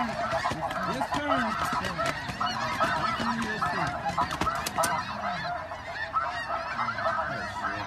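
A huge flock of geese calling all at once: countless overlapping honks in a steady, unbroken chorus.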